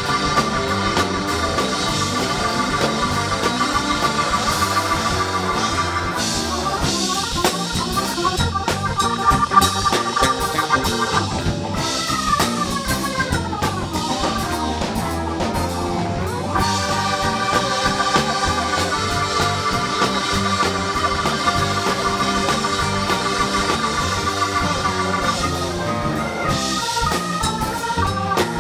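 Live rock band playing an instrumental passage led by an organ sound from a stage keyboard, over a drum kit. The organ holds long chords, broken in the middle by a stretch of sliding, falling notes.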